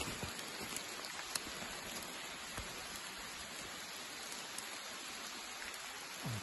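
Steady rain falling on the dry leaf litter of a forest floor, with occasional sharp ticks of single drops.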